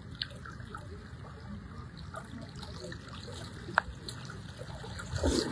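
Floodwater flowing and trickling steadily through a street, with one sharp click about two-thirds of the way in and a brief louder swash of water just before the end.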